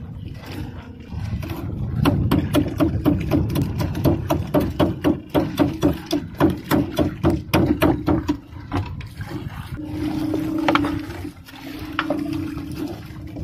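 Gillnet being hauled in by hand over the gunwale of a wooden outrigger boat: quick knocks and rustling of wet mesh and rope against the hull, on a low rumble. A low steady hum comes in twice near the end.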